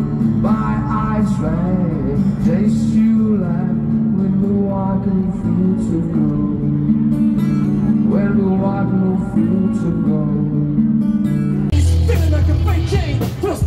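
A street musician singing and strumming an acoustic guitar, amplified through a portable speaker. About twelve seconds in it cuts to louder band music with a heavy bass.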